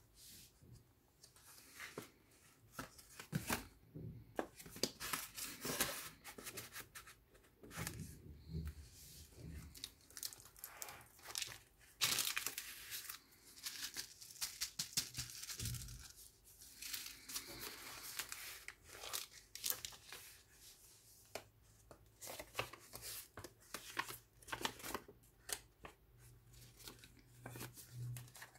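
Paper and card rustling, crinkling and sliding as the thick pages of a handmade junk journal are turned and photos and cards are lifted out of paper pockets. The rustles come in irregular short bursts, the loudest about halfway through.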